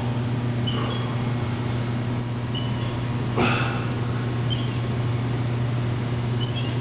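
A weight-stack chest press machine squeaking briefly with each rep, about every two seconds, over a steady low hum. One short louder rush of noise comes a little past halfway.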